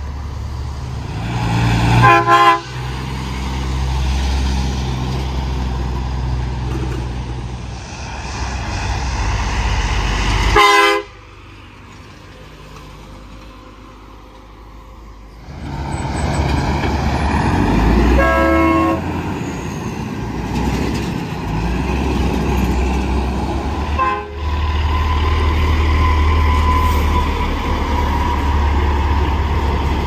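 Semi trucks' diesel engines running as they pull away, with four short blasts of truck-mounted train horns, a chord of several tones each time, about 2, 10, 18 and 24 seconds in.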